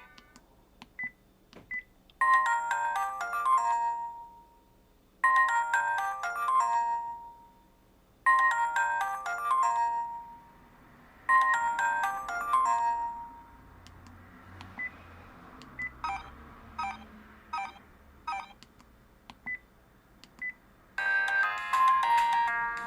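Sharp-made vodafone V601SH mobile phone playing its built-in ringtones and sound effects through its small speaker: a short chime phrase played four times about three seconds apart, then a few brief beeps and quick notes, and a fuller ringtone melody starting near the end.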